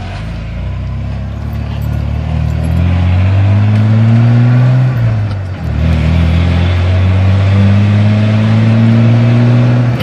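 Ford 4.9-litre inline-six engine in a 1991 F-150 pulling under load, its pitch rising. It drops off briefly about five seconds in, like a gear change, then climbs again.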